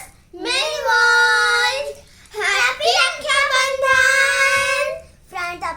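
A child singing, holding two long, steady notes one after the other, with a few shorter sung syllables near the end.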